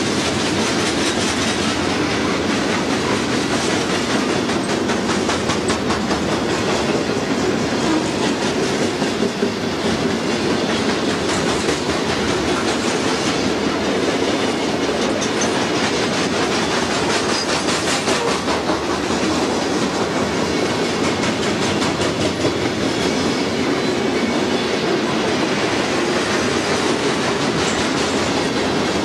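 Freight train of covered hoppers and boxcars rolling past, a steady rumble with the rapid clicking of steel wheels over the rails.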